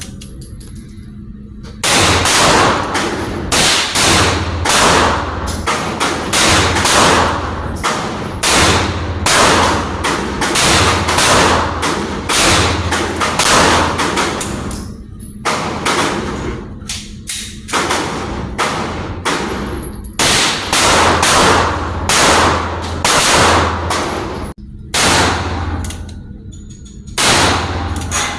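Handgun fire, a .357 Magnum among it: dozens of sharp shots, mostly half a second to a second apart, in strings broken by a few short pauses, each shot ringing on after it.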